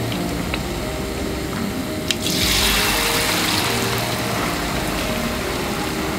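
Deep-frying oil sizzling and bubbling around whole ayu (sweetfish), getting noticeably louder about two seconds in.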